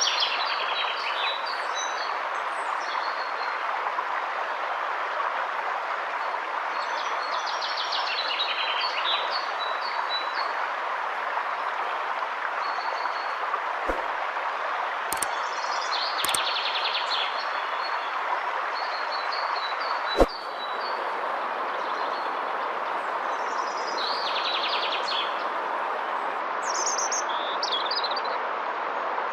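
Steady rush of river water with songbirds chirping now and then over it. A few sharp clicks stand out, the loudest about twenty seconds in.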